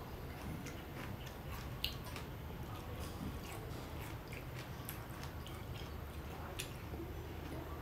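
A person chewing a mouthful of pomegranate seeds, with faint scattered crunchy clicks over a low steady hum.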